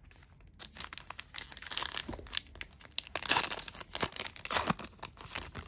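A trading-card pack's foil wrapper being torn open and crinkled, a crackling that starts about half a second in and is loudest in the second half.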